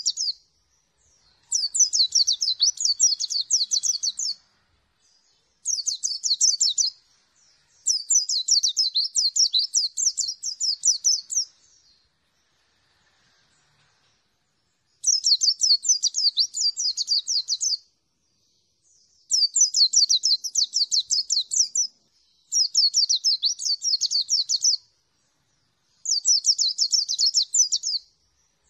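A caged white-eye singing: repeated bursts of rapid, high twittering notes, each burst lasting about one to four seconds with short pauses between, and a longer pause about halfway through.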